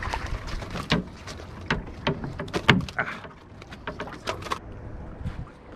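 Irregular clicks and knocks of gear being handled on a boat deck, about eight in four and a half seconds, the loudest a little past halfway, over a low steady rumble.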